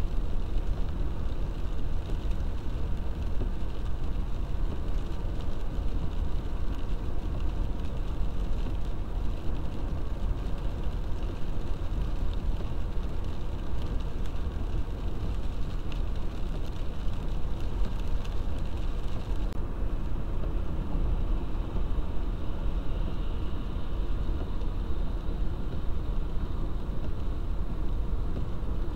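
Steady car-interior driving noise: a low engine and road rumble with the hiss of tyres and rain on a wet road, heard from inside the cabin.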